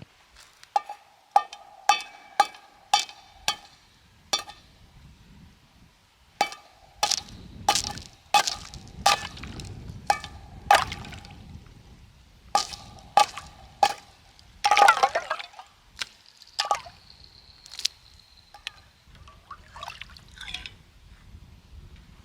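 A run of sharp metallic clinks and taps, many of them leaving a short ringing tone, coming in quick series about two a second, with a low shuffling rumble between them.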